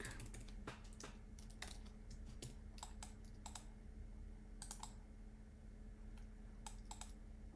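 Faint computer keyboard keystrokes, scattered and irregular, as a word is deleted and retyped, over a low steady hum.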